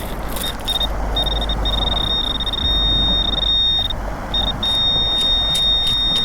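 Metal detector's steady high-pitched tone sounding over a detected target, a bottle cap: a few short beeps, then long unbroken stretches with a brief gap about four seconds in. Low wind rumble on the microphone underneath.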